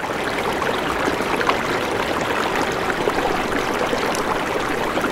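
Fast-flowing, turbulent water rushing steadily, with small splashes throughout.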